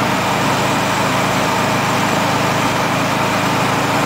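Alfa Romeo GTV cruising at a steady speed, heard from inside the cabin: an even engine drone under steady road and wind noise.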